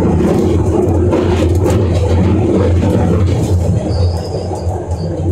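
Old-stock Glasgow Subway train running through the tunnel, heard from inside the car as a loud, steady rumble of wheels and motors. A brief faint high wheel squeal comes about four seconds in, and the noise eases slightly near the end.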